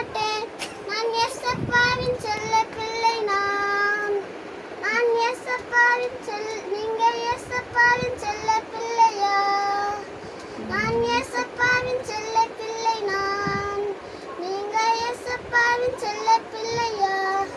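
A young girl singing solo, holding notes and sliding between them in phrases with short breaths, about 4 and 10 seconds in.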